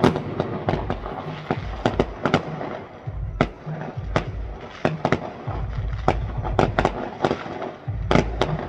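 Fireworks going off: an irregular string of sharp bangs and crackles, a few a second, from shells launching and bursting, over a low rumble.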